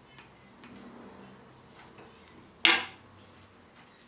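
A metal fork set down on a wooden serving board: one sharp clink a little past halfway that rings briefly.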